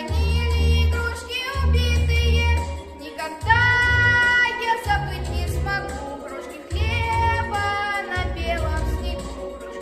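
A boy singing a song in a high voice with vibrato, over a backing track with a bass line.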